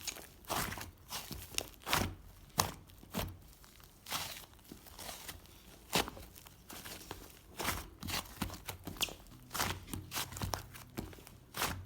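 Irregular crinkling and rustling with sharp clicks, a few each second, like something being handled and crumpled.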